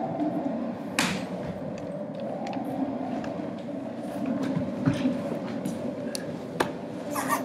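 Several people crawling on hands and knees across a wooden floor: scattered knocks and thumps over a steady low rumble.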